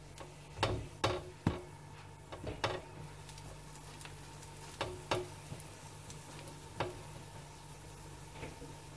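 A slotted spatula knocking and scraping against a nonstick frying pan in irregular sharp clicks as a slice of French toast is turned and pressed, over a light sizzle of frying.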